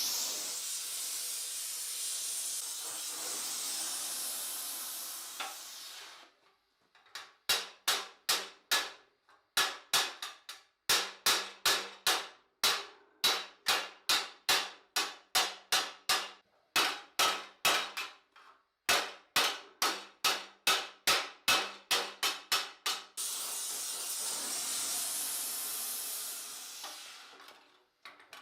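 Hammer beating a sheet-steel armour plate, sharp ringing blows at about two or three a second, with short pauses between runs. Before and between the runs of blows comes a steady, high hiss lasting several seconds.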